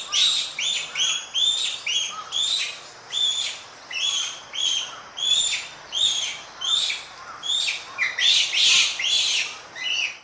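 Japanese macaque calling: a long run of short, high chirping calls, about two a second, growing louder and harsher near the end.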